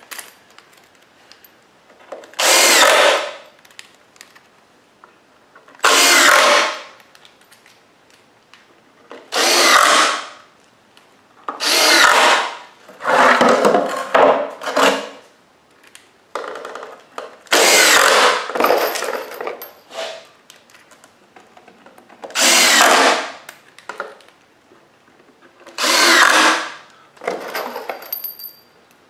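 Power drill driving screws into the wooden frame of a fireworks rack: about eight short runs of a second or so each, a few seconds apart, one of them longer, with pauses between as each screw is set.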